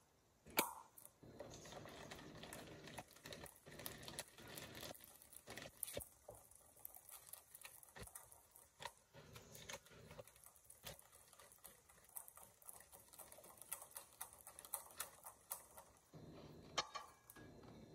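Whisk beating runny cake batter in a stainless steel bowl: faint, quick, irregular ticking and swishing. It stops near the end, with a single click after it.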